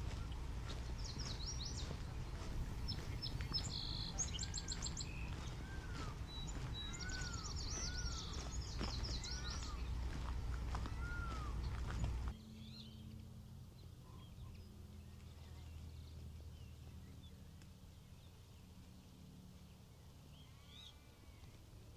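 Songbirds calling: repeated arched chirps and fast high trills over a steady low rumble. About halfway through, the rumble cuts off abruptly and the birds go on faintly.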